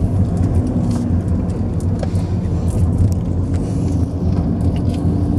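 Car engine and road noise heard from inside the cabin of a moving car: a steady low hum with faint light rattles.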